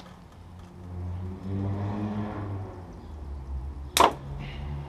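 A very tight bolt on a motorcycle's front brake caliper breaks loose with a single sharp crack about four seconds in, under a 5 mm hex key. A softer, strained sound of effort comes before it.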